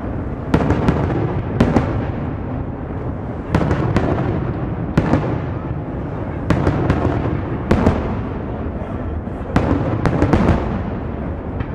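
Aerial fireworks shells bursting in a display: a sharp bang every second or so, several in quick pairs, over a continuous rolling rumble of echoing explosions.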